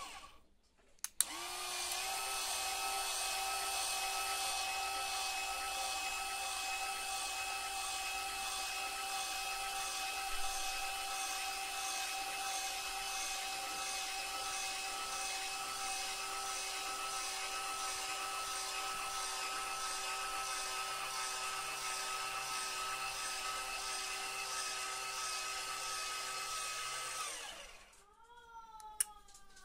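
Small electric motor turning the leadscrew tipping drive of an RC-converted Bruder Joskin toy tipper trailer, whining steadily as it lowers the tipper body. It starts just after a click about a second in, runs for about 25 seconds, stops, and gives a short rising whine near the end.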